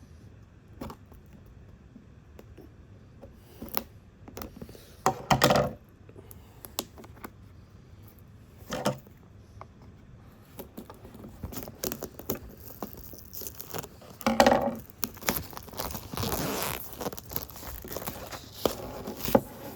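Hands handling a cardboard product box and its packaging: scattered knocks and scrapes, with louder clunks about five seconds in and again around fourteen seconds. Near the end comes several seconds of continuous rustling and tearing of packaging.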